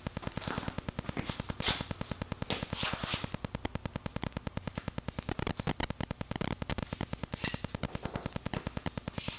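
A steady, rapid clicking at about ten clicks a second, with a few brief rustles of cord being handled and knotted.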